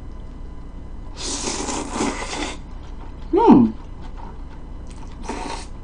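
A person slurping jjolmyeon noodles: a long noisy slurp about a second in and a shorter one near the end, with a short hum that rises then falls in pitch between them, the loudest sound.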